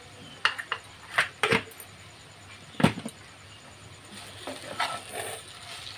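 Wooden spatula stirring shredded roti in a nonstick frying pan, with a few sharp clacks against the pan, most in the first three seconds and fainter ones near the end.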